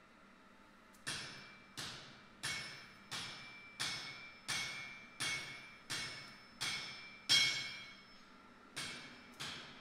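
Hand hammer striking red-hot steel on an anvil: about a dozen even blows, roughly three every two seconds, each with a bright metallic ring. The blows start about a second in, and there is a short pause near the end before two more.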